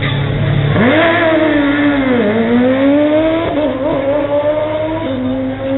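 Drag-racing sportbike launching off the start line at full throttle. The engine holds a steady note, then its pitch shoots up about a second in. It falls and climbs again several times as the bike shifts up through the gears.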